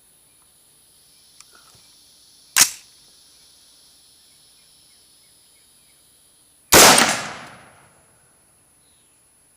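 Two rifle shots from a 5.56 AR-15 fitted with its factory flash suppressor, about four seconds apart; the second is louder and trails off in a longer echo.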